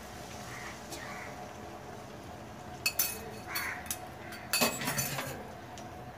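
Kitchen utensils clinking while a dish is stirred in a pan, with a sharp clink about three seconds in and a quick run of louder clinks near five seconds, over a faint steady hum.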